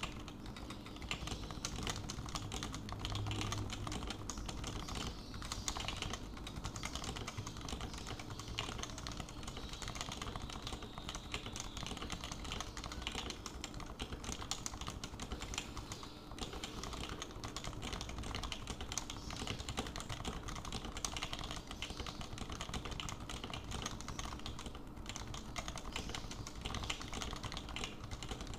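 Continuous fast typing on a Happy Hacking Keyboard Pro 2 with 45 g Topre electrostatic capacitive switches, keystrokes following one another in quick succession.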